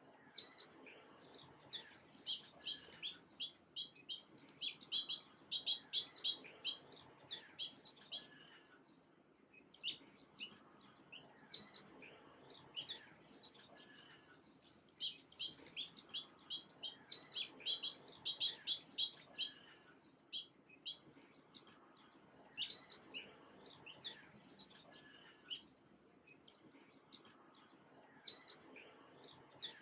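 Small birds chirping in quick runs of short, high notes, coming in bouts of a few seconds with brief pauses between.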